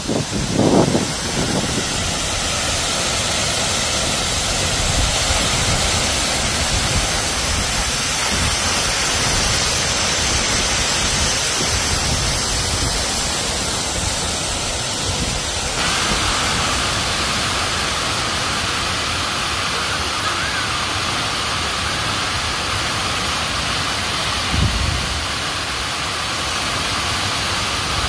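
Tac Tình waterfall: a steady rush of falling water. Its sound shifts abruptly a little past halfway.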